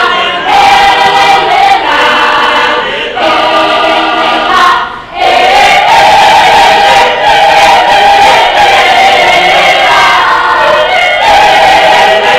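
Mixed choir of men and women singing in harmony, with a short break about five seconds in, then long held chords.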